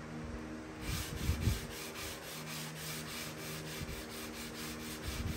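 Hand sanding along the edge of a bare wooden drawer, rhythmic back-and-forth rubbing strokes about three a second that begin about a second in, with a couple of dull bumps. A steady low hum runs underneath.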